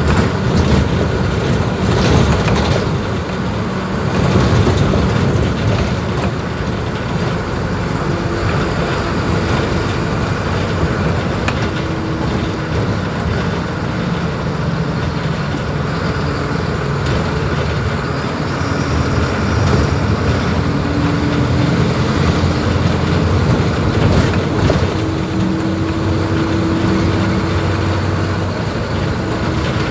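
Mercedes-Benz OF-1721 BlueTec 5 bus's diesel engine running on the move, its note rising and falling as the bus accelerates and changes gear, over steady road noise.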